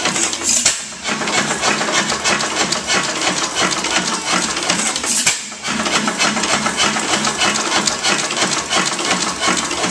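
5 HP Galloway round rod hit-and-miss engine running, with a steady, rapid mechanical clatter as its flywheels turn. There are two brief, louder hissing bursts, about half a second in and about five seconds in.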